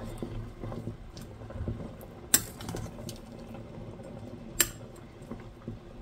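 Metal ladle stirring soup in a stainless steel pot: soft liquid sloshing, with two sharp clinks of the ladle against the pot a little over two seconds apart.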